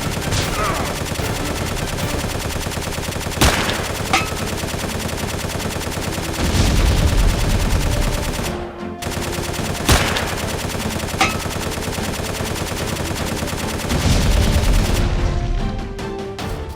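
Rapid, continuous machine-gun fire sound effects, with a few sharp single shots cracking through and two louder, deeper stretches of fire about six and a half and fourteen seconds in.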